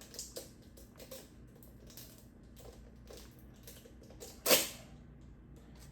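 A new oil filter's packaging being opened and handled: small irregular crackles and clicks, with one short, loud rustle or tear about four and a half seconds in.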